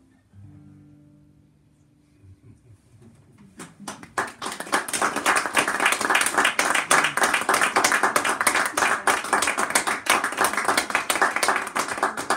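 The last sustained notes of a song fade out. About three and a half seconds in, an audience breaks into applause, clapping steadily and thinning out near the end.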